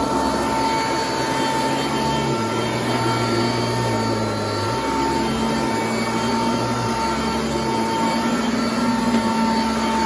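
Sanitaire commercial upright vacuum running steadily with a constant motor whine, its brush roll pushed back and forth over frieze carpet.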